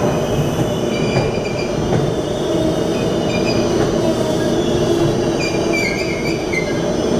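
Amtrak Amfleet passenger coaches rolling past along the platform track: a steady, heavy rumble of steel wheels on rail. Thin, high wheel squeals come and go over it, one wavering squeal standing out near the end.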